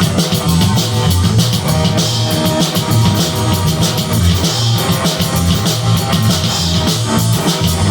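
Rock trio playing: electric guitar, drum kit with steady cymbal hits, and fretless bass, at a loud, even level.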